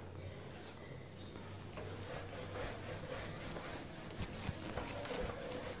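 Whiteboard duster rubbing across a whiteboard, a soft dry scrubbing that starts about two seconds in, over a low steady hum.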